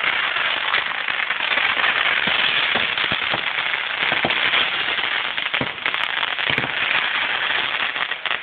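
Ground firework fountain spraying sparks: a loud steady hiss with scattered sharp crackles and pops, which stops abruptly near the end as the firework burns out.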